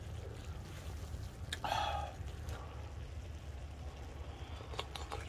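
A short slurp of hot ramen broth from a steel bowl about two seconds in, with a few faint clicks over a steady low hum.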